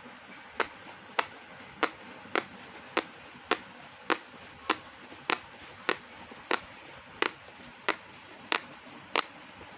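Silicone pop-it fidget toy being popped bubble by bubble: sharp single pops at a steady pace, a little under two a second.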